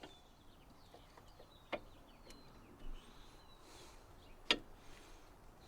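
Two sharp clicks, a small one nearly two seconds in and a louder one about four and a half seconds in, over faint bird chirps and low background noise.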